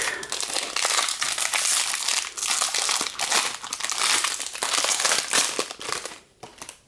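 Crinkling of a trading-card pack's wrapper being torn open and handled, dense and continuous, dying away about six seconds in.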